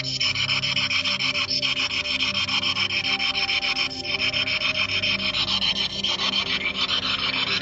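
Ghost-hunting spirit box sweeping through radio stations: a continuous, rapidly pulsing static hiss.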